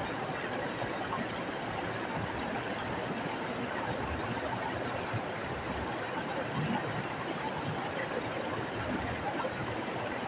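Stream water flowing and splashing over rocks, a steady, even rush.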